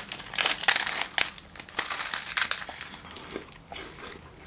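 Foil and plastic snack wrappers crinkling as they are handled: a dense run of crackly rustles for about the first three seconds, then fewer and quieter.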